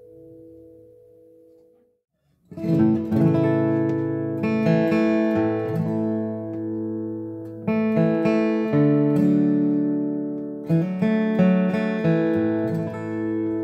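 Boucher SG-152-BMV acoustic guitar (red spruce and Madagascar rosewood) played with a Bluechip TP48 flatpick. A ringing chord fades out and there is a brief silent break about two seconds in. Then a new passage starts of strummed chords with moving bass notes, in phrases that come again.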